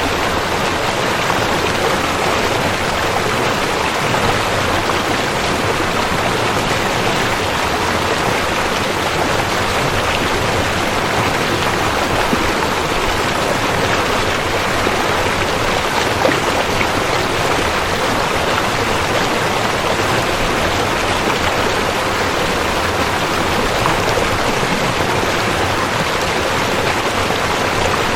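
River water rushing steadily: a constant, even water noise with no letup.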